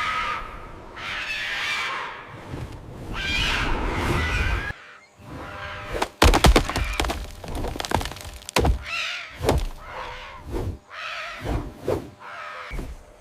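Harsh, drawn-out animal cries, then from about halfway through a rapid run of sharp knocks and thuds, with shorter cries among them.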